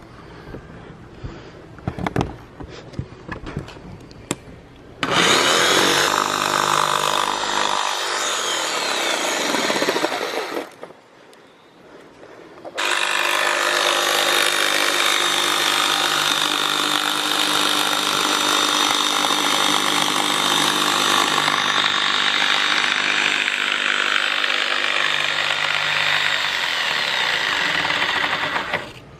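Power saw cutting a plexiglass sheet: a few knocks and taps while the sheet is handled, then the saw runs in two long cuts, about six seconds and then about fifteen seconds, with a short pause between.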